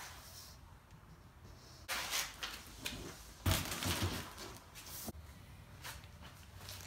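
Heavy cardboard box holding a toilet being pulled across a minivan's cargo floor and set down on concrete, with scuffing and a dull thump about three and a half seconds in, the loudest sound.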